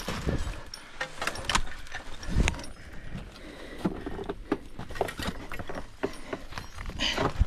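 Metal climbing gear clinking and scraping against rock and snow, with a run of sharp knocks and a heavier thump about two and a half seconds in, as a climber works up a snowy alpine rock route.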